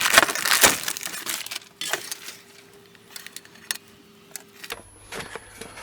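Packaging rustling and small metal parts clinking as a motorcycle sump guard fitting kit is handled. The handling is loudest in the first second or two, then it dies down to a few scattered light clicks.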